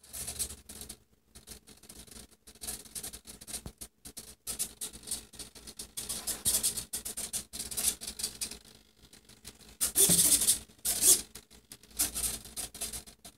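Scratchy rubbing and scraping handling noise from a HobbyKing Bixler 2 foam RC plane being rolled by hand, in irregular bursts with two louder ones about ten and eleven seconds in.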